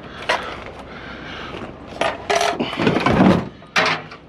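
Handling noise from scrap pieces being moved about: several separate knocks and clattering bursts, the loudest a little past three seconds in.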